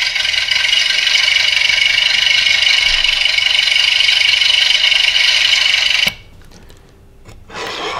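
A small speaker driven by a DF Player Mini MP3 module playing a steady, harsh, hissy buzz with no bass. It cuts off suddenly about six seconds in, as the jumper wires to the Arduino are being handled.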